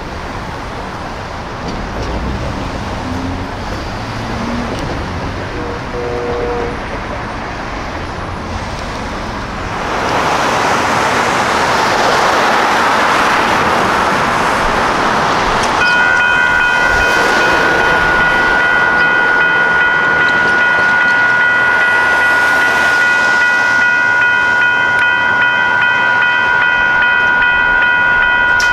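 Street noise, swelling into a broad rushing sound about ten seconds in; then, about sixteen seconds in, a railroad grade crossing's electronic warning bell starts ringing steadily as the crossing activates for an approaching light rail train.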